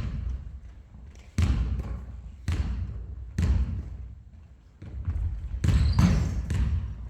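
Basketball bouncing on a hard court: single bounces about a second apart, then a busier run of bounces and thuds in the second half.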